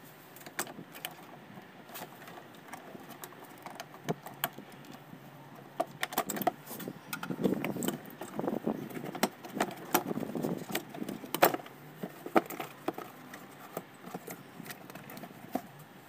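Plastic trunk side trim and its clips on a BMW E38 being handled and pulled loose by hand: a run of sharp clicks, knocks and rattles, busiest and loudest in the middle.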